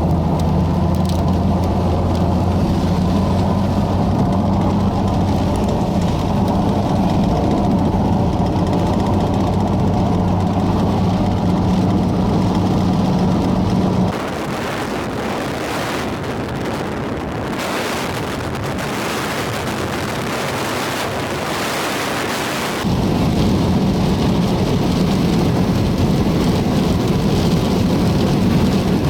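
Steady engine and road drone inside a moving car, with wind and rain noise on the vehicle. About fourteen seconds in it switches abruptly to a hissing rush of wind and rain without the engine drone; about nine seconds later the car drone returns just as abruptly.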